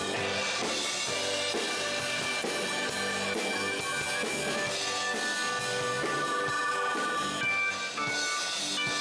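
Instrumental background music with a steady drum beat and held instrument notes.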